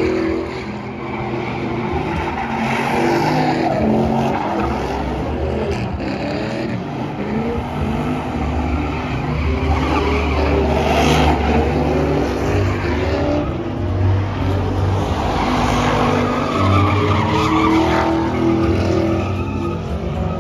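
Pickup truck doing a burnout and donuts: the engine revs hard, its pitch rising and falling again and again, while the rear tires spin and squeal on the asphalt.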